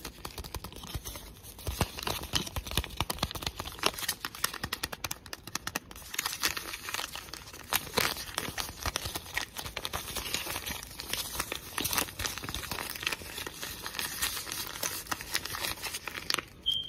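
A thin white sheet crinkled and rubbed between the fingers right at the phone's microphone for ASMR, a dense, irregular stream of small crackles.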